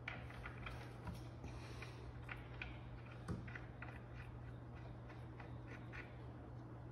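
Light scattered clicks and ticks from fingers handling a small fitting at a hole in a wooden boat's hull bottom, with one sharper knock about three seconds in, over a steady low hum.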